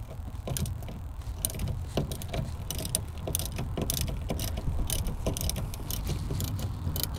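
Socket ratchet clicking in short strokes and metal clinking as a car battery terminal clamp is loosened, over a low steady rumble.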